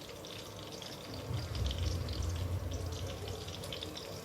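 Crackling sizzle of chicken wings frying in hot oil, a steady patter of small pops. A low rumble comes in after about a second.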